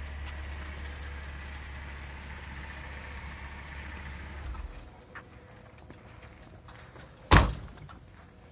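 A car door on an Infiniti G37 convertible shut once with a single loud thud about seven seconds in. Before it there is a low steady rumble that stops about halfway through.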